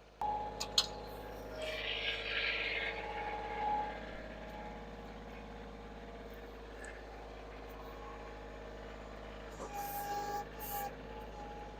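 Kioti diesel tractor engine running at a steady speed, with a sharp click near the start.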